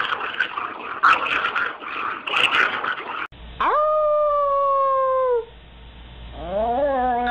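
After a few seconds of irregular noise, a dog howls: one long howl of about two seconds that rises quickly, holds and sags slightly at the end. Near the end a second, lower howl begins, wavering in pitch.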